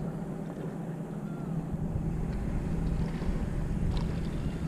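Steady low engine hum, with a few faint clicks in the second half.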